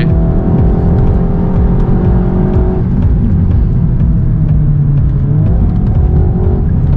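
Car engine heard from inside the cabin, pulling hard on a fast drive. The engine note holds steady, drops for a couple of seconds about three seconds in, then climbs again.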